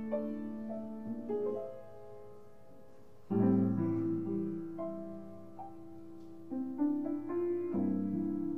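Piano music: slow held chords that ring and fade, with a lull about two seconds in, a new chord struck about three seconds in and another near the end.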